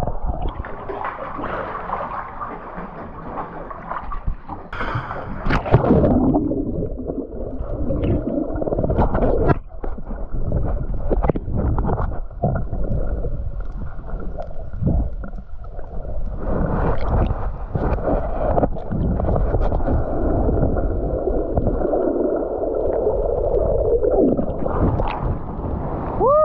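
Surging sea water heard underwater through a submerged GoPro: a muffled rushing and gurgling that swells and ebbs, with scattered knocks. A short falling pitched sound comes at the very end, as the swimmer breaks the surface.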